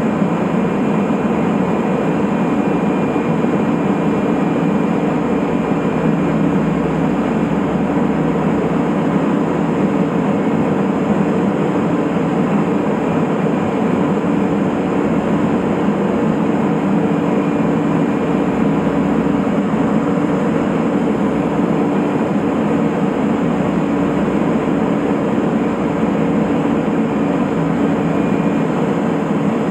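Cockpit cabin noise of a Cessna P210 Silver Eagle in flight: its turboprop engine and propeller make a steady, even drone with a constant low tone in it.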